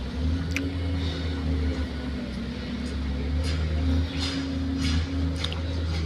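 Motor grader's diesel engine running steadily as the machine levels and dresses the soil of a road bed, with a few short clicks over the engine hum.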